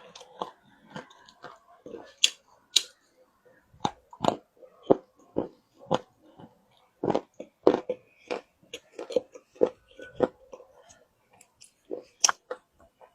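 A person biting and chewing wet loess clay close to the microphone: irregular sharp crunches, about one or two a second, with softer wet mouth sounds between them.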